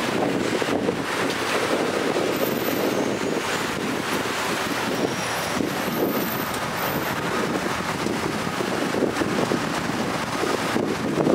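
Road and traffic noise from a car driving along a city street, with wind on the microphone; a steady, even noise.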